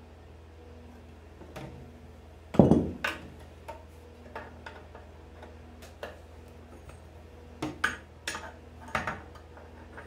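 Metal pliers clicking and scraping against a nail in a wooden chair slat as it is worked out, with a louder knock about two and a half seconds in and scattered clicks after.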